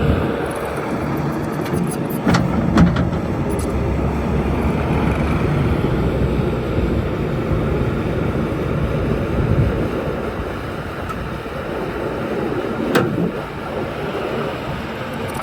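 Bobcat T770 tracked skid steer's diesel engine running steadily under operation, with a few sharp metallic knocks around two to three seconds in and again near the end.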